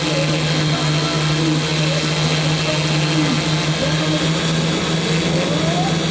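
Multirotor drone's electric motors and propellers running in flight, a steady droning hum with a few slight rises and falls in pitch.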